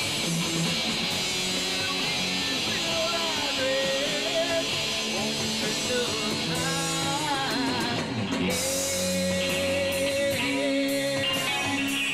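Rock music led by electric guitar. A lead line slides and wavers up and down in pitch, then holds a long note.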